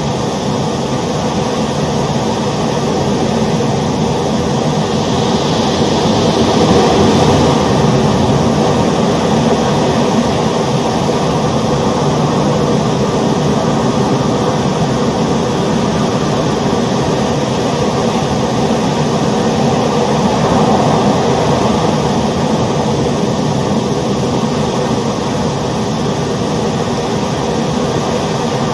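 Ocean waves: a steady rush of surf that swells gently twice, about a quarter of the way in and again past the middle.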